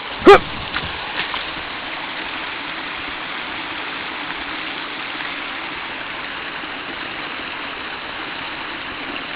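Small waterfall rushing steadily, a constant even splash of falling water. Just after the start a brief, loud pitched sound like a short voice cuts across it, the loudest moment, followed by a couple of faint ticks.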